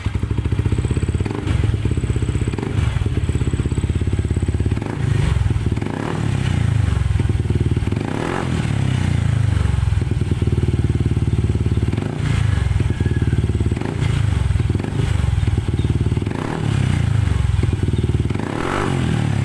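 Yamaha NMAX 155's single-cylinder four-stroke engine running through a JVT Power Pipe V3 aftermarket exhaust, catching right at the start and then running steadily with a deep exhaust note that rises and falls a few times.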